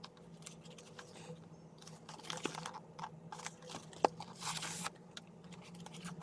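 Grey foam carrying case being slid out of a cardboard sleeve and handled: irregular crunching, scraping and crinkling, with a sharp click about four seconds in and a longer rasp just after.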